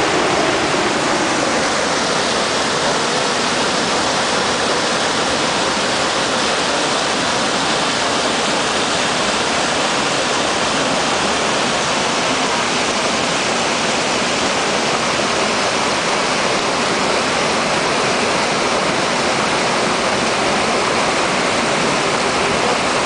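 A small waterfall and shallow rocky stream rushing steadily, water tumbling over boulders.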